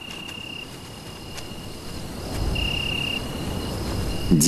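Night crickets chirping in a steady high trill, which grows louder for a moment at the start and again about two and a half seconds in. A low rumble swells beneath it from about two seconds in.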